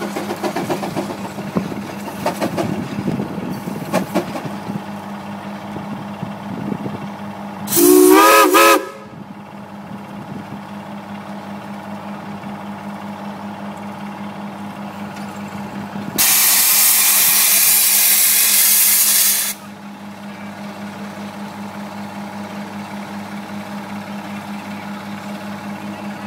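Case steam traction engine sounding a short, wavering toot on its steam whistle about 8 seconds in, then venting steam in a loud hiss for about three seconds. A steady low hum runs underneath.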